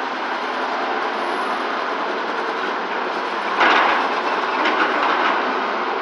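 Excavators working a dirt dig: steady machinery noise, with a loud run of metallic clanking and scraping from about three and a half to five seconds in.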